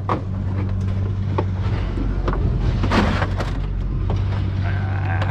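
Pickup truck engine idling steadily, with a few sharp knocks and clanks of scrap metal being thrown out of the truck.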